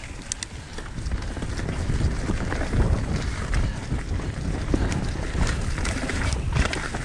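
Mountain bike riding over a dry-leaf dirt trail: tyres rolling and crunching on leaves, small rattles and clicks from the bike, and wind buffeting the microphone. The noise grows louder over the first two seconds as the bike picks up speed, then holds.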